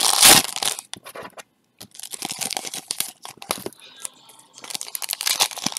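A basketball trading-card pack's wrapper torn open with a sharp rip at the start, then crinkling of the wrapper and rustling of the cards as they are pulled out and handled, in short bursts with a brief pause.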